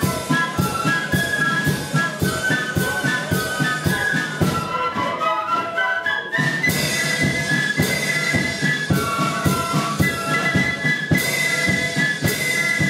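Flute band playing a tune: a section of flutes carries the melody over side drums beating a steady rhythm, with bass drum and cymbals. The drums drop out for about a second near the middle, then come back in.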